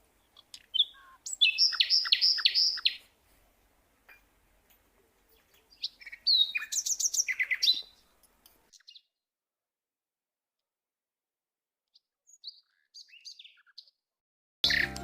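Small birds chirping in short runs of quick, high notes, with quiet gaps between the runs. Music starts near the end.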